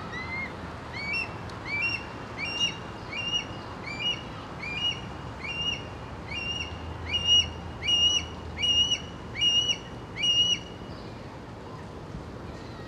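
Red-tailed hawk calling: a series of about fourteen short, rising calls, one roughly every three-quarters of a second, growing louder in the second half before stopping.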